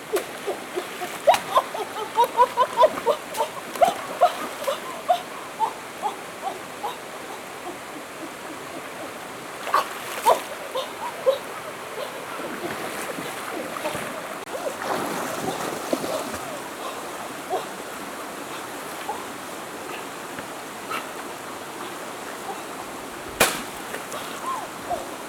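River water splashing, with a run of quick small splashes in the first several seconds and a few more around ten seconds in, over a steady rush of flowing water. A single sharp knock near the end.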